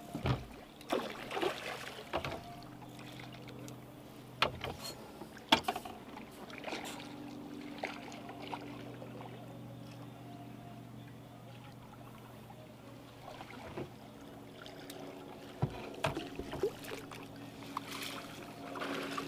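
Scattered knocks and clatter aboard a small fishing skiff, over a faint steady hum, as a hooked fish is worked to the landing net; water splashes near the end as the fish thrashes beside the boat.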